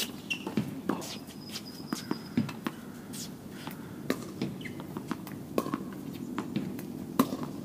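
Tennis balls being struck by rackets and bouncing on the court: irregular sharp pops, sometimes two or three a second. There is a brief high squeak a little over a second in.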